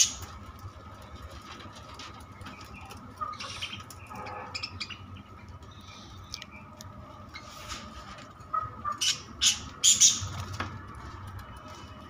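A small flock of budgerigars chirping in short, scattered calls, with wing flutters, and a cluster of louder chirps near the end.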